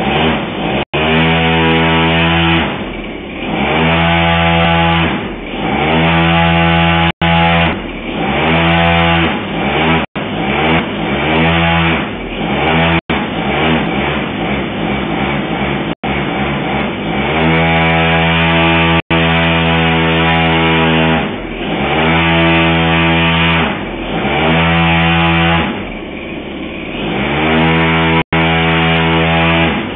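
Turnigy FTL52 model-aircraft engine running and being throttled up and down over and over, its pitch climbing and dropping every two to three seconds, with one longer spell held at high revs about halfway through, while it is tested with a pumpless smoke system.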